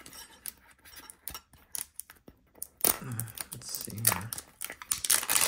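Hands handling a metal Poké Ball tin, with light clicks and taps at first, then denser clicking and scraping of fingers on the tin near the end.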